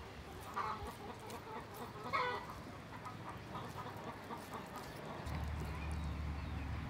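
Chickens clucking a few short times. A low steady hum comes in near the end.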